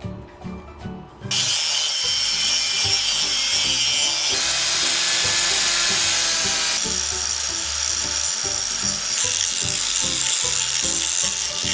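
A power tool cutting or grinding, a loud steady rasping noise that starts a little over a second in and changes character a few times, over background music.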